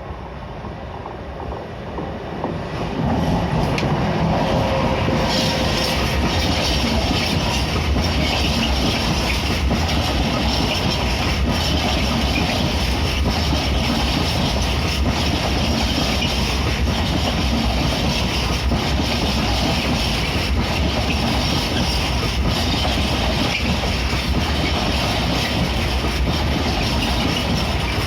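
Freight train hauled by an electric locomotive passing through a station. It grows louder over the first three seconds, then the wagons rumble steadily past with a regular clicking of wheels over the rail joints.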